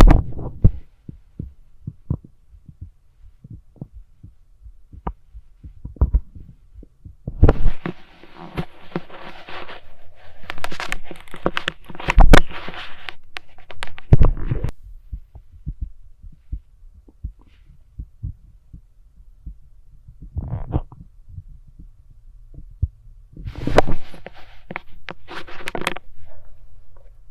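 Heartbeat heard through a stethoscope: repeated low, dull thumps, with a few stretches of louder noise over them.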